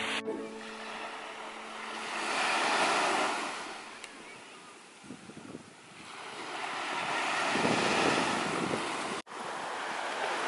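Small waves breaking and washing up a sandy beach, swelling twice, a couple of seconds in and again near the end, with some wind on the microphone.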